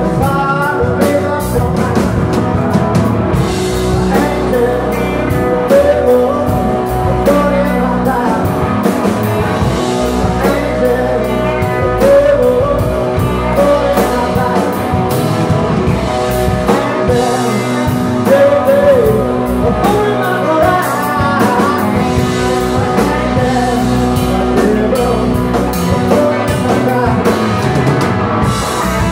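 A live rock band playing electric guitars and a drum kit, with a singer.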